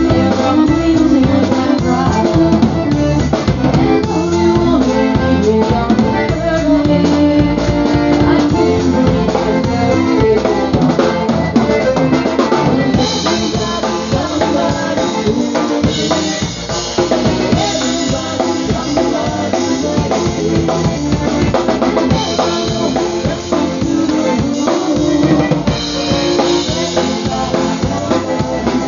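Live polka band playing: a button concertina over a drum kit with a steady beat. From about halfway through, the cymbals come in louder in stretches.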